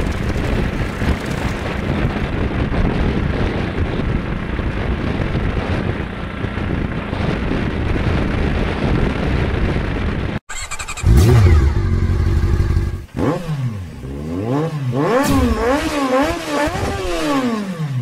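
Steady engine and wind noise from a three-wheeler auto-rickshaw (tuk-tuk) running at speed on a highway. About ten seconds in it cuts off sharply and gives way to an engine revving up and down over and over, its pitch rising and falling.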